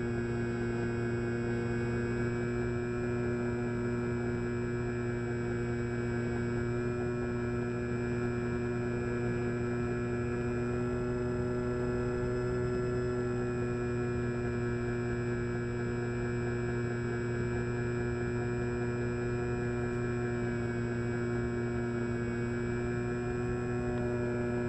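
Hobbyking Cloud Surfer's electric motor and APC 8x4 pusher propeller running at a steady cruise throttle, heard from the onboard camera as a continuous hum with slight wobbles in pitch.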